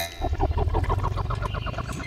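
Cartoon bubbling sound effect of a submarine going under water: a fast run of short rising bubble blips, about eight a second, over a low rumble.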